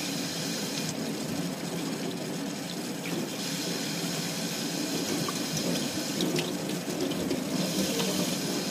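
Kitchen tap running steadily into a stainless steel sink, the stream splashing over a large baung catfish as it is rinsed and rubbed by hand, with a few light knocks.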